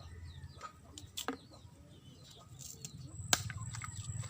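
Small birds chirping faintly over a low steady rumble, with a few sharp clicks, the loudest about three seconds in.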